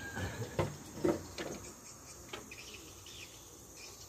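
A few sharp knocks in the first second and a half, then faint bird chirps over a soft background of insects.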